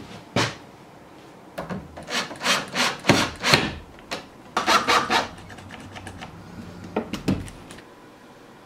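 Wood screws being turned by hand with a screwdriver through a metal hasp into a pine door frame: short, uneven turning strokes in bursts with pauses between, and no motor sound.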